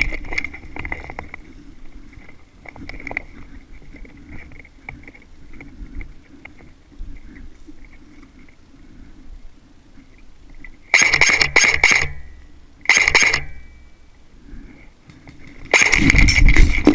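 Quiet rustling and small clicks, broken by short bursts of rapid mechanical firing with a whine, typical of an airsoft electric gun. One burst comes about 11 seconds in, a shorter one about 13 seconds in, and a louder one near the end.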